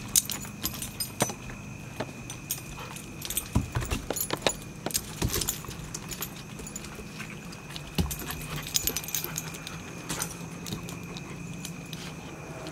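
Puppies wrestling on a wooden deck: claws click and scrabble on the boards and collar tags jingle in irregular flurries, busiest about a third of the way in and again past the middle.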